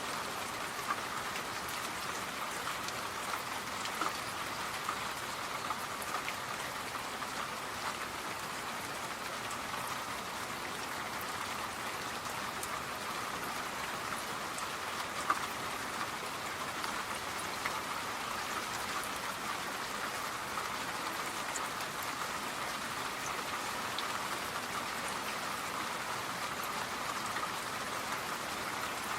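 Steady rain falling, an even hiss with scattered drip ticks.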